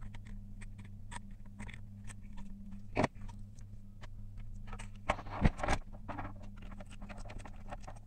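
Handling noise of small electronics parts on a wooden desk: irregular clicks, taps and light scrapes of a clear plastic project box, pliers, an audio jack and wire connectors, with louder knocks about three seconds in and around five and a half seconds in. A steady low hum runs underneath.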